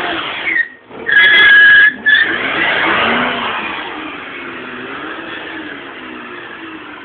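Holden VN Commodore doing a burnout: the engine runs at high revs with the rear tyres spinning. About a second in there is a loud, steady tyre screech lasting about a second, then the engine and tyre noise fade gradually.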